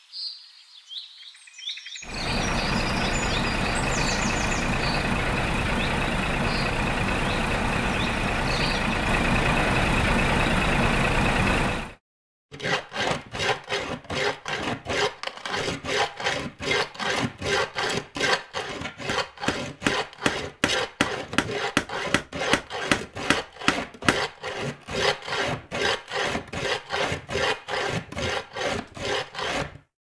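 Woodworking sound effects: a power tool runs steadily for about ten seconds with birds chirping over it and cuts off suddenly. After a short gap, a hand tool works wood in quick, even back-and-forth strokes, about three a second.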